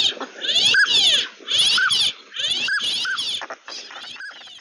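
Northern pintail ducks calling: short whistled notes repeat about once a second over raspy, higher-pitched calls, fading out near the end.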